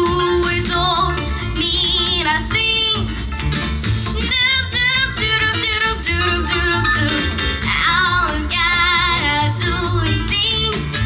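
A female vocalist singing a pop song with instrumental accompaniment.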